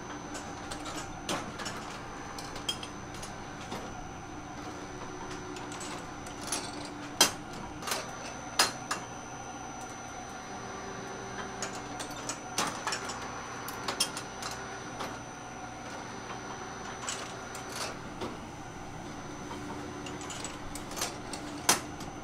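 Automatic cookie-baking machine running: a steady mechanical hum with a thin high whine, broken by irregular metallic clicks and clanks as the hinged metal molds move and open and close along the conveyor. The loudest clanks come about a third of the way in and again near the end.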